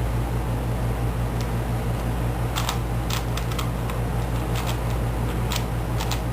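Rubik's Cube being turned by hand: scattered plastic clicks at uneven spacing, sometimes two or three close together, over a steady low electrical hum.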